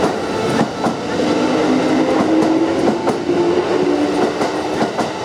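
Kintetsu train running over the track, its wheels clacking at uneven intervals over rail joints, with a steady whine underneath that drops a little in pitch about four seconds in.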